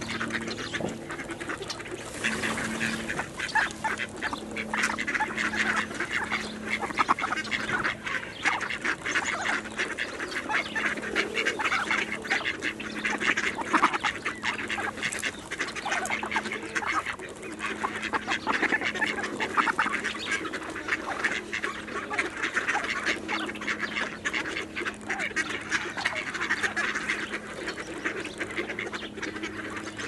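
A flock of mallard ducks quacking and chattering, many calls overlapping without a break.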